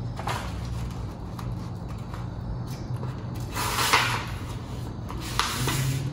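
A sheet of paper rustling and sliding on a wooden table as it is folded in half, with a louder rush of hands pressing down the fold about four seconds in and a shorter one near the end.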